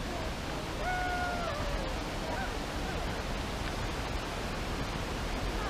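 Steady rushing outdoor noise, even and unbroken, with a short faint high-pitched call about a second in and another at the very end.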